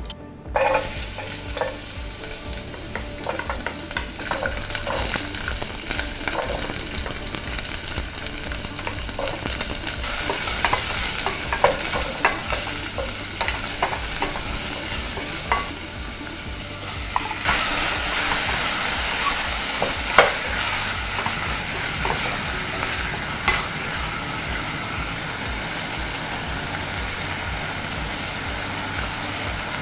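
Onions and garlic sizzling in hot cooking oil in a saucepan, stirred with wooden chopsticks that knock now and then against the pot. About 17 seconds in the sizzle jumps louder and brighter.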